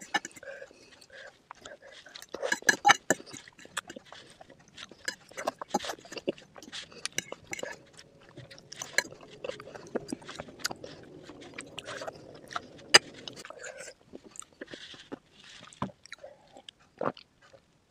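Close-miked eating sounds: chewing and biting through chicken feet curry and Maggi noodles, a dense run of small wet clicks and crunches that thins out in the last few seconds.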